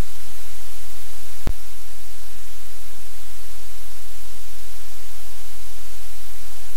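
Loud, steady hiss of static from the livecam's audio feed, with a low hum beneath it and one sharp click about a second and a half in.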